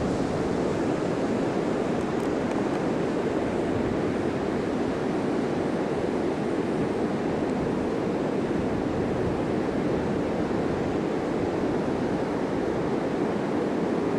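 Steady ocean surf on a beach, a continuous even wash of breaking waves, mixed with wind.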